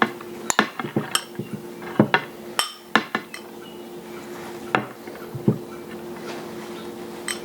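Serving spoon clinking and knocking against a pot and a plate as rice is dished out: irregular light knocks and clinks, several in the first three seconds and a few more later, over a steady low hum.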